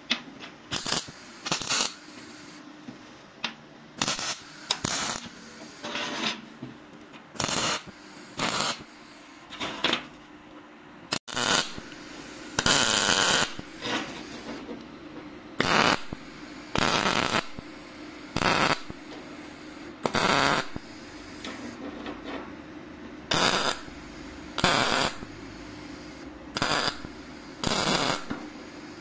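A long series of short abrasive grinding bursts, each a second or less, irregularly spaced: a drill bit being ground against the stone of a drill-bit sharpener. A faint steady hum runs underneath.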